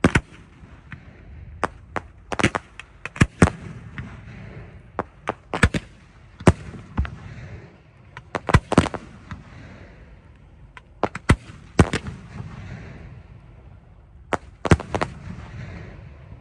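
Consumer fireworks cake firing a volley: about two dozen sharp bangs of shots launching and stars bursting, at uneven intervals and sometimes in quick pairs, over a steady rushing noise between them.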